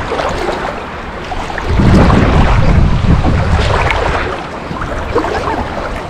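Sea water sloshing and splashing against a waterproof camera held at the surface by a swimmer, with a louder low rush of water from about two seconds in that eases off after four.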